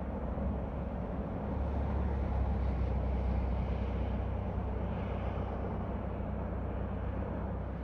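CSX freight train rolling past with a steady low diesel rumble, swelling a little a couple of seconds in.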